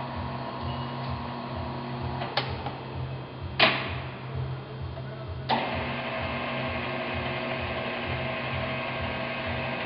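Emco Maximat Super 11 bench lathe running under power, its headstock gears whirring with a low pulse about four times a second. Three metallic clacks, the loudest about three and a half seconds in, come as the headstock speed levers are shifted. After the last clack the gear whirr is higher and louder, at a new spindle speed.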